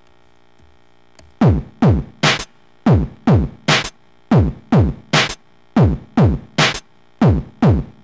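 Electronic drum loop mixed from WAV samples by a PHP script and played back over the sound system: deep drum hits with a falling pitch, in repeating groups of three, starting about a second and a half in.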